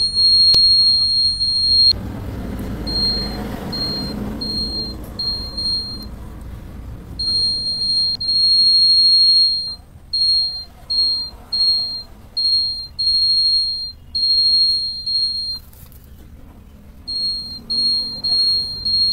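Electronic alarm buzzer of a DIY mobile phone security alarm sounding a single high-pitched tone. It switches on and off unevenly: long blasts of about two seconds mixed with runs of quick half-second beeps.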